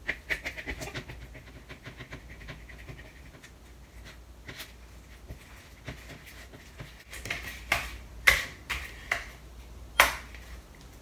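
Freshly activated slime being stirred with a spatula in a glass bowl: fast, faint wet scraping and squishing. Near the end it is squeezed by hand, giving a few sharp clicks and pops, the sound of a clicky slime.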